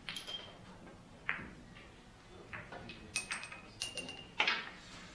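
Billiard balls clicking against each other in a series of hard, sharp clicks, several with a brief ringing tone, and a longer, louder knock about four and a half seconds in.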